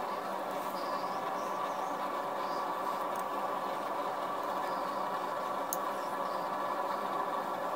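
A steady background hum, with faint short scraping sounds of a hand carving gouge paring small cuts into a wooden gunstock.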